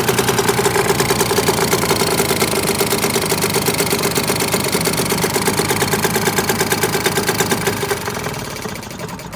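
British Seagull two-stroke outboard motor running with a rapid, even firing beat; near the end it dies away.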